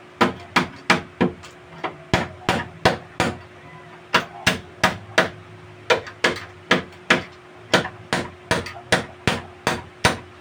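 Rapid hammer blows on the old doorknob, about three a second in runs of four or five with short pauses, knocking loose the rusted, seized knob until it comes free.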